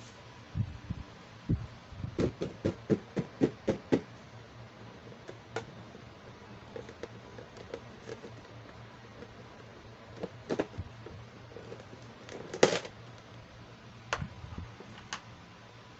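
Fingers tapping and handling a clear plastic lid on a plastic toy tray. A run of about eight quick taps comes a couple of seconds in, followed by scattered clicks and one louder plastic crackle as the lid is pulled off near the end.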